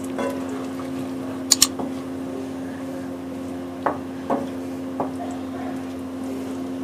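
Spatula stirring thick paneer gravy in a nonstick pan: soft squishing with a few knocks of the spatula against the pan, two sharp clicks about a second and a half in and more knocks near four and five seconds. A steady low hum runs underneath.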